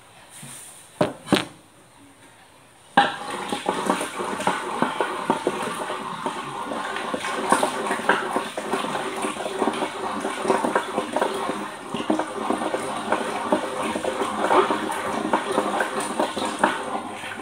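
Wooden dal churner (mathu) twirled in a pot of cooked dal, mashing it with a continuous wet sloshing and rapid small clicks, starting about three seconds in. Before that, two sharp knocks about a second in.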